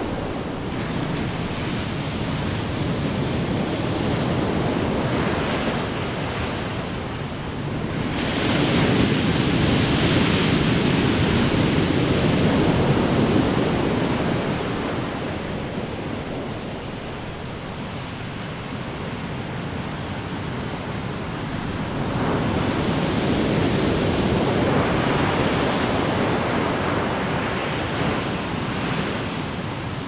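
Ocean waves breaking on the shore: a continuous rush of surf that swells loudly as a big wave crashes about eight seconds in, eases off, and swells again with another breaker a little past twenty seconds.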